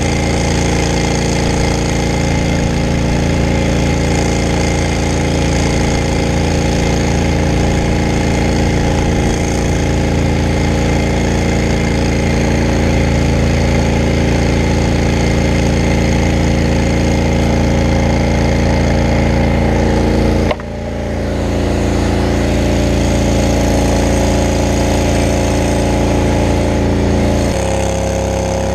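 A brush fire truck's engine and water pump running loud and steady while the hose sprays. The sound drops sharply for a moment about two-thirds of the way through, and the engine's pitch shifts near the end.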